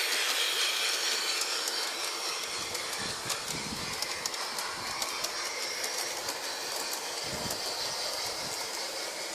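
Bachmann Big Hauler large-scale 4-6-0 model locomotive running along garden track with its train: a steady whirring hiss of motor, gears and wheels, with scattered clicks over the rail joints, growing a little fainter as it pulls away.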